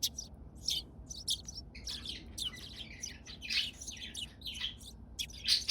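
Small birds chirping: many short, high calls in quick succession, overlapping one another.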